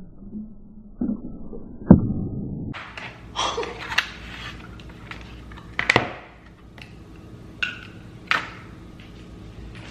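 Kitchen clatter: a series of sharp knocks and clinks from things being handled and set down. The loudest comes about two seconds in.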